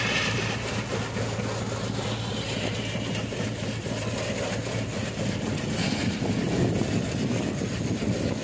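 Peanut cleaning machine running steadily: a low, even motor hum with the rattle of peanuts shaking through its sieves.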